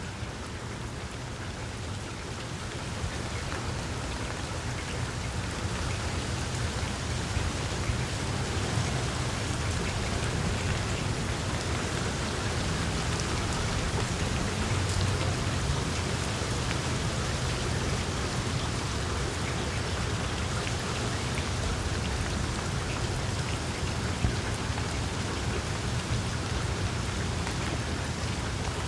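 Steady rain falling and pattering on surfaces, with a low rumble underneath. It grows a little heavier over the first several seconds, then holds steady.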